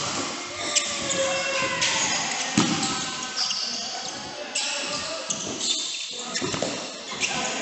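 Badminton being played: several sharp racket hits on the shuttlecock, with voices in the background.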